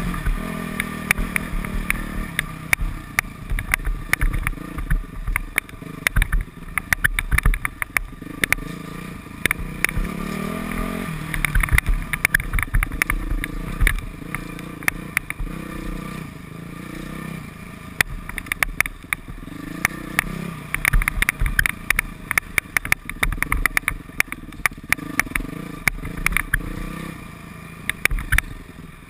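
Modified Yamaha YZ426F four-stroke single-cylinder dirt bike engine, revving up and falling back repeatedly as it is ridden over rough ground, with frequent clattering knocks throughout.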